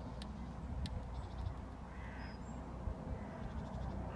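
A bird's harsh cawing call about halfway through and again at the end, over a steady low rumble, with faint high chirps from small birds.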